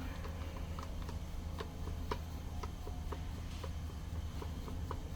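Small, light clicks at an uneven pace, about two a second, as a hand screwdriver turns out the screws of a smart door lock's housing.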